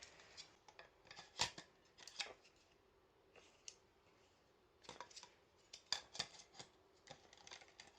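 Scattered light clicks and knocks of D-cell batteries being handled and fitted into an old battery-powered lantern, with a quiet pause in the middle.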